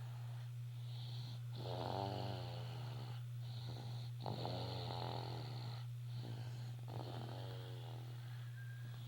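Snoring: slow, steady breaths, about three snores in all, roughly every two and a half seconds, each with a falling tone. A steady low hum runs underneath.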